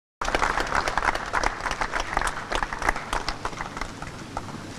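A small group of people applauding, the claps thinning out near the end.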